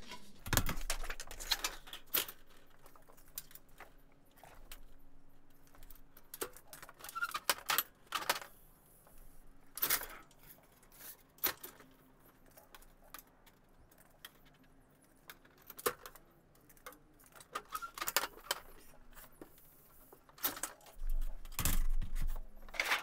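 Trim-coil sheet metal and a Tapco sheet-metal brake clinking and knocking as a flashing strip is handled, fed in and bent: irregular sharp metallic clicks and knocks, with a denser run of louder knocks and a low thump near the end.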